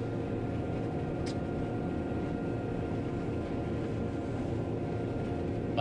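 John Deere 9500 combine running steadily while harvesting corn, heard from inside the cab as an even drone of engine and machinery. A short high tick sounds about a second in.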